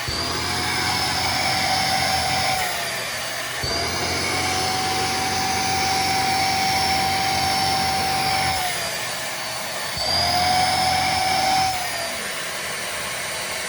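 Deerma DX115C corded vacuum cleaner running, a steady motor whine whose pitch drops and climbs back up a few times as the suction is tried out.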